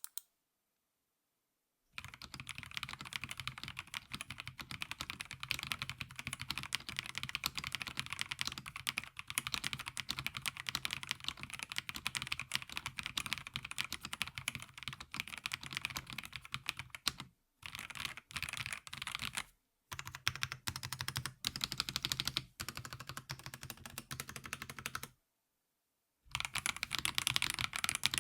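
Fast, continuous typing on a Fantech Maxfit70 mechanical keyboard: a dense run of key clicks. It breaks off briefly a few times in the second half and stops for about a second near the end before resuming.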